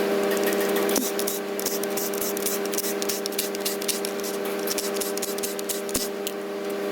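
PACCAR truck transmission running: a steady whine with rapid, irregular scratchy crackling over it, the grinding noise it is being inspected for.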